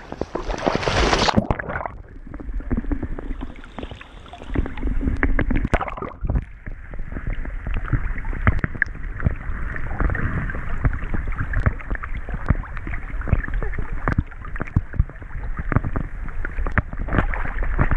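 Water sloshing and splashing right at a camera strapped to the back of a swimming Labrador–Maremma sheepdog cross as it paddles through a creek: a constant irregular patter of small splashes. It turns dull and muffled after the first couple of seconds.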